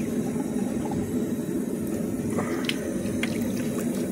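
Water running from a tap into a bathroom sink, a steady rushing, with a couple of faint clicks a little past halfway.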